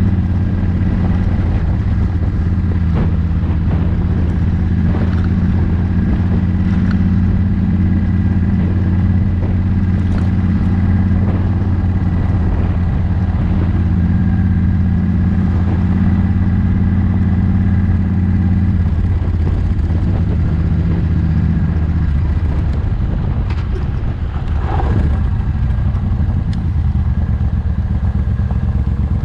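Motorcycle engine running steadily under way, heard from on the bike itself. The engine note drops about two-thirds of the way through as the rider eases off, and dips briefly again a few seconds later.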